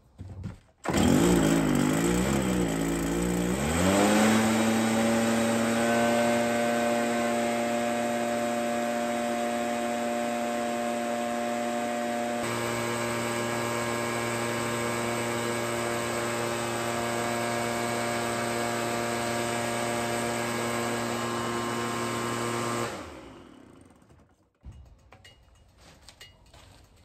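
Stihl leaf blower's two-stroke engine at locked full throttle. Its pitch wavers for a few seconds, then holds a steady high drone. It cuts off about 23 seconds in and winds down.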